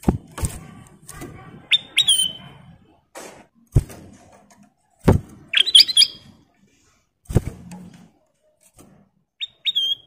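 Ruby-throated bulbul (kutilang emas) giving short, clear whistled calls: two quick rising notes about two seconds in, a rapid cluster of notes about six seconds in, and two more near the end. Between them come several sharp knocks, louder than the calls, from the bird hopping about its bamboo cage.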